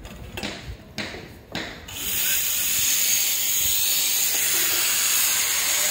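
A few short scuffs, then about two seconds in a handheld angle grinder starts and runs steadily with a loud, high hissing grind.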